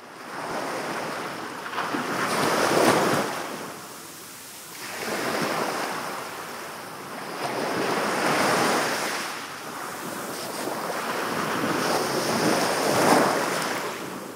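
Small sea waves breaking and washing up a sandy beach, the surf swelling and ebbing every few seconds.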